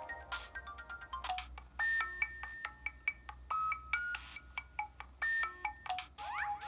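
Samsung Anycall SCH-W200 feature phone playing one of its built-in ringtone melodies through its small speaker: a string of short, plucked-sounding electronic notes, with quick rising chirps coming in near the end.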